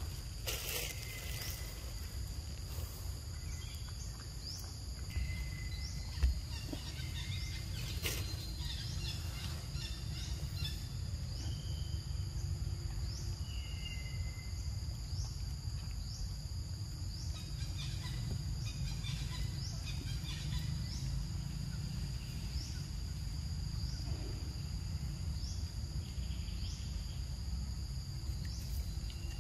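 Outdoor ambience: a steady high drone with a short chirp repeating about every one and a half seconds, over a low rumble. A few sharp clicks, and one thump about six seconds in.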